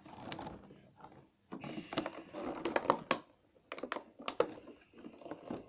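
Irregular clicks and light taps of hands handling a plastic toy and its packaging close to the microphone.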